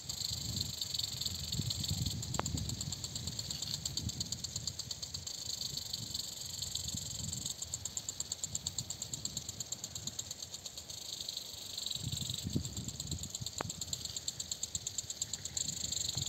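Sprinkler irrigation running in a pistachio orchard: impact sprinklers spraying water with a hiss and a fast, steady ticking, several ticks a second. Low rumbling comes in near the start and again about twelve seconds in.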